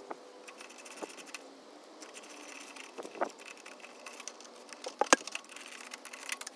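Light metallic clicks and scrapes of a hand tool working on a lawn mower engine's carburettor linkage, the engine being reassembled, with a sharper click about five seconds in.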